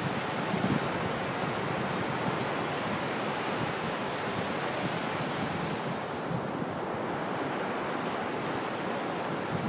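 Steady wash of surf on a sandy beach, with wind buffeting the microphone.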